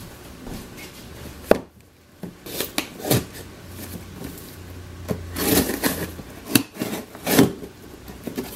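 Cardboard shipping box being handled on a tabletop: a sharp knock about a second and a half in, then irregular scraping and rubbing of cardboard, loudest a little past the middle and again near the end.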